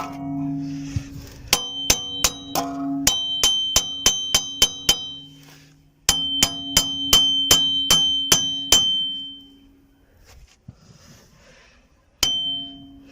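Hammer blows on a car's steel wheel hub to knock it off its splines, each blow ringing clearly. There are two runs of quick strikes, about three to four a second, then a quiet spell and a single strike near the end.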